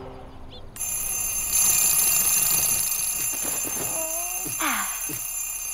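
Alarm clock ringing: it starts suddenly about a second in, then rings steadily on several high tones.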